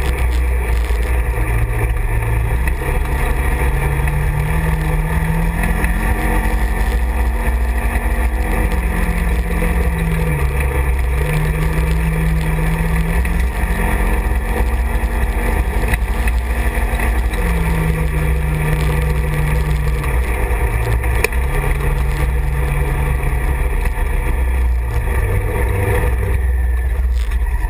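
Side-by-side UTV's engine running while driving on a dirt road, heard from the cab, over a steady low rumble. Its pitch rises and falls every few seconds with the throttle, and it drops to a lower note near the end as the machine slows.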